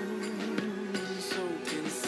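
Music: a song with sustained instrument tones and regular drum hits.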